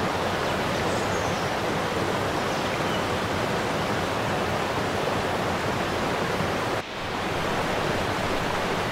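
Snoqualmie Falls: the steady rush of a large waterfall, with a short dip in level about seven seconds in.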